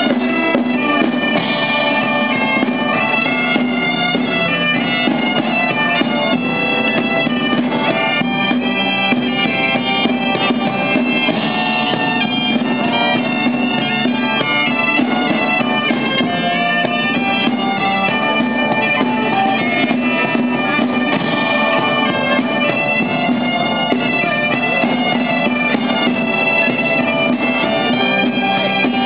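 Bagpipes playing a lively tune over a steady, unbroken drone, with rope-tensioned wooden drums beating along.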